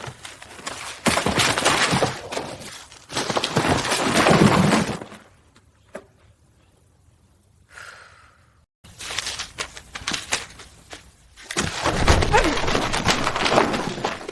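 Crashing and breaking noises from household objects, in four loud stretches of a second or two each, with a quiet gap in the middle.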